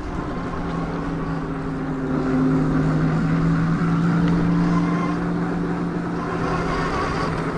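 Huck Cycles Stinger 3000 electric moped cruising, its motor giving a steady low hum over road and wind noise. It gets a little louder about two seconds in and eases off again near the end.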